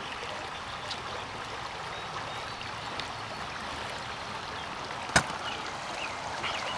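Creek water running steadily, with a single sharp click about five seconds in.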